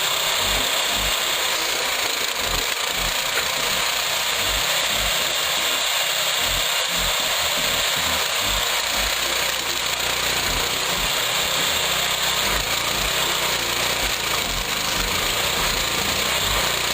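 Wood-processing machinery running: a steady mechanical noise with irregular low knocks.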